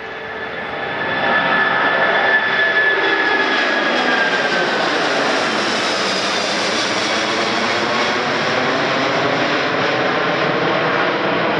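Four Rolls-Royce Trent 500 turbofans of an Airbus A340-600 at take-off thrust as the airliner climbs out overhead. The jet noise grows loud over the first second or two and then holds steady, and its whine slowly falls in pitch as the aircraft passes over.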